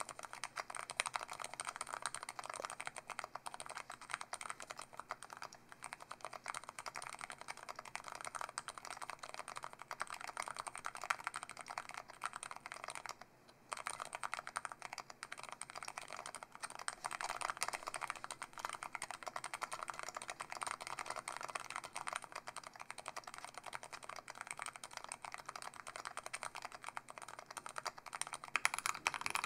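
Typing on a Menhir 40% keyboard fitted with Kailh Midnight Pro silent tactile switches, a polypropylene plate, DSS Sencillo keycaps and a Poly-fil-dampened case: a continuous stream of keystrokes, with a brief pause about halfway.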